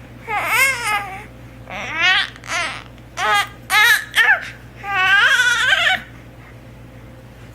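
High-pitched crying: about six short wavering cries over the first six seconds, the last one the longest, then a pause.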